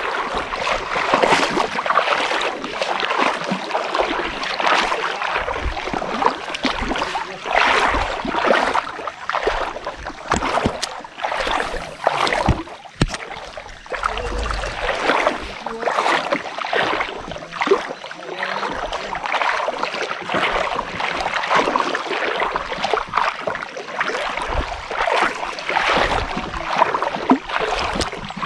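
River water splashing and lapping around a kayak: an uneven, surging hiss.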